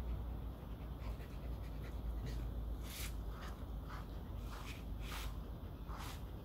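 A comb rasping through a Shetland sheepdog's thick double coat in a few brisk, irregular strokes, strongest in the second half, while the dog pants.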